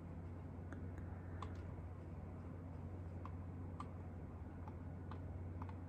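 Faint room tone with a steady low hum, and about ten small, faint clicks scattered irregularly through it; no hiccup.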